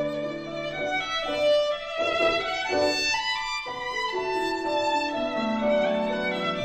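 Background music led by violin, playing a melody of sustained notes over a lower accompaniment.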